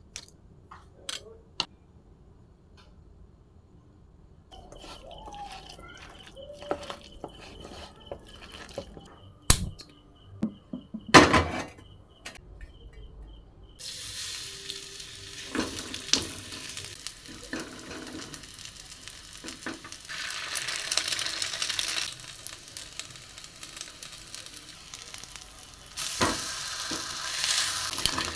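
A few clicks and a couple of loud knocks of utensils against a steel bowl. About halfway through, cabbage-and-egg batter starts sizzling steadily on a hot black iron griddle (tawa), with a spoon scraping and tapping the pan.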